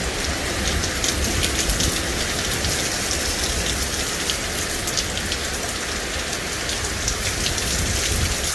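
Heavy rain pouring down and splattering on the ground and surfaces, a steady dense hiss with many small sharp drop hits.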